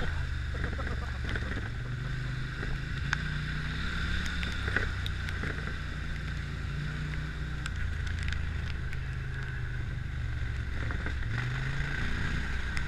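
Quad bike (ATV) engine running at low speed on a rough track, its low hum stepping up and down in pitch with the throttle, with a few scattered clicks and knocks from the ride.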